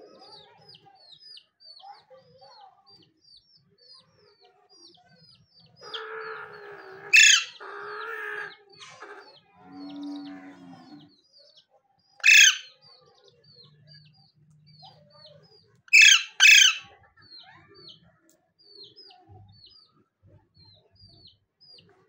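Alexandrine parakeet giving loud, shrill screeches, four in all, the last two in quick succession. Behind them runs a steady series of faint high chirps.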